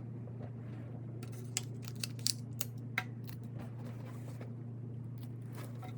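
A few light clicks and taps from hands handling the materials, bunched in the first half, over a steady low hum.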